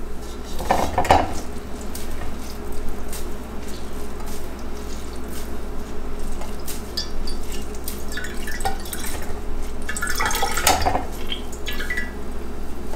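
Black bean dye dripping and trickling from a freshly squeezed, wet skein of yarn back into a glass jar, in scattered drips and small splashes, with a denser run of splashes about ten seconds in.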